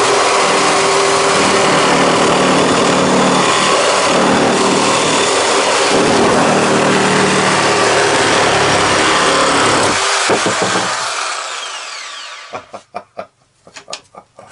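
Bosch reciprocating saw with a wood blade cutting through a clamped piece of wood, running loudly and steadily for about ten seconds. The motor then winds down with a falling whine, followed by a few light clicks and knocks as the saw is handled.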